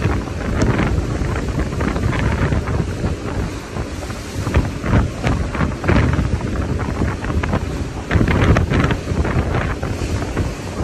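Wind buffeting the microphone over the rush of rough open sea, with waves breaking into foam and spray alongside a ship in irregular surges.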